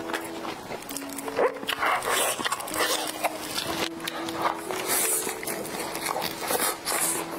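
Wet chewing and slurping of oily spicy gluten strips (latiao), in repeated bursts, over background music with long held notes.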